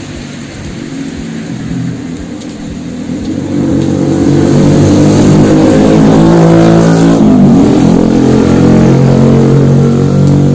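A motor vehicle's engine running close by, getting much louder about four seconds in and staying loud, its pitch shifting a little partway through.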